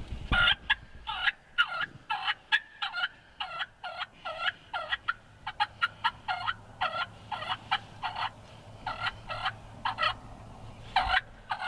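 Turkey calling: a long, even run of short, clipped notes, about two or three a second, with a few sharp clicks among them.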